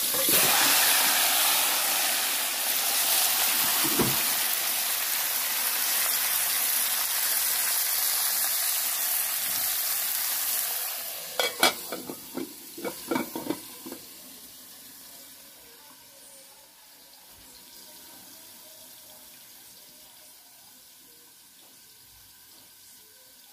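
Seasoned chicken pieces sizzling loudly in hot oil and curry in a pot. About eleven seconds in the sizzle drops, a few sharp metal clanks on the pot follow, and then a faint steady sizzle remains.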